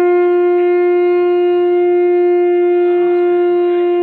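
Conch shell (shankh) blown in one loud, long, steady note, as is done during a Hindu puja.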